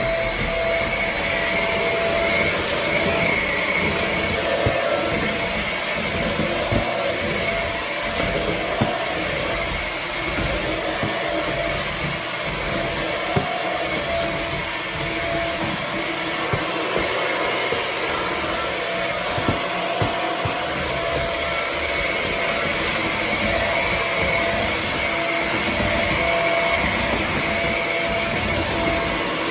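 Shark Rocket ZS350C corded stick vacuum running steadily with a high, even whine, a few faint ticks scattered through it, as it is passed over bits of lettuce on the floor.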